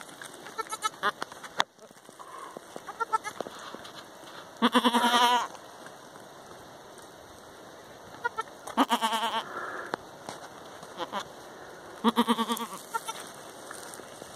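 Goats bleating: three loud, wavering bleats about four seconds apart, with softer, shorter calls between them. Faint crackling runs underneath.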